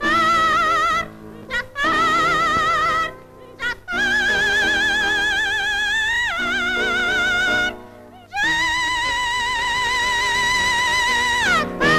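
Lyric-coloratura soprano singing an opera aria with instrumental accompaniment. She holds long high notes with a wide vibrato in several phrases, and the last is the longest, sustained for about three seconds before it slides down near the end.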